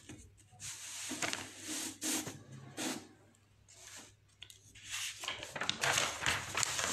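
Paper rustling and handling: short bursts of crinkling in the first half, then busier, louder shuffling of sheets with quick crackles near the end.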